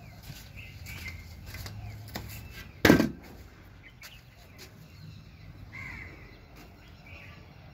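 One short, loud animal call about three seconds in, over faint scattered ticks.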